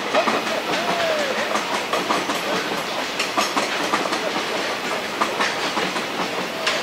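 Freight train drawn by a JR Freight Class EH200 electric locomotive rolling through, its wagon wheels clattering over the rail joints in a steady run of clicks.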